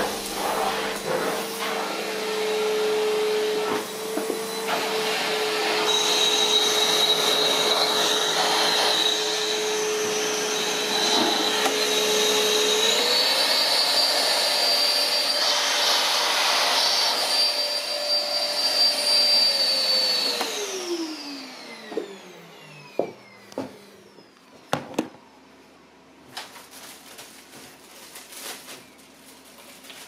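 Dirt Devil Rebel 70 bagged vacuum cleaner (1800 W) running with a steady motor whine and a high whistle, its pitch stepping up a little about halfway through. About two-thirds of the way in it is switched off and the motor winds down in a falling whine, followed by a few knocks as the nozzle and hose are handled.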